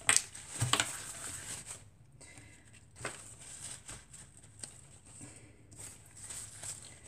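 Paper and card rustling and sliding on a cutting mat as die-cut paper pieces are handled and pressed down by hand, with a few short scraping strokes near the start, just before a second in, and about three seconds in.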